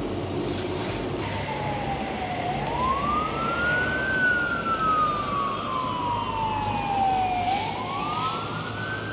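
Emergency vehicle siren wailing in slow cycles, each a quick rise in pitch followed by a longer slide down, over the noise of city street traffic.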